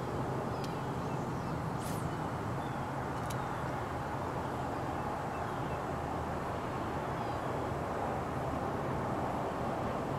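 Steady outdoor background rumble and hiss, with three short sharp clicks in the first few seconds.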